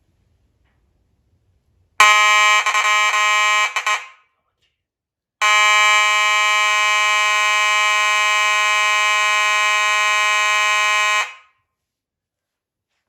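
Simplex 4903 fire alarm sounding a pretty loud buzzing horn tone: a first blast of about two seconds that stutters near its end, then, after a pause of about a second, a steady blast of about six seconds that cuts off.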